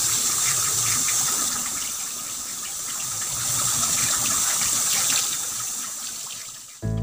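Kitchen tap running steadily into a basin of fish, with small splashes and clicks as the fish are rinsed and rubbed by hand.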